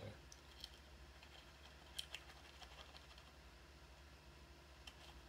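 Near silence: low room hum with a few faint, scattered clicks.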